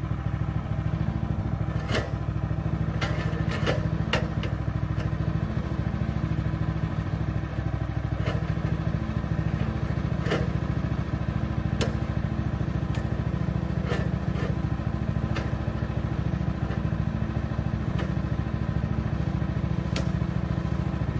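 Portable sawmill's gasoline engine running steadily, with scattered sharp clicks and knocks over it.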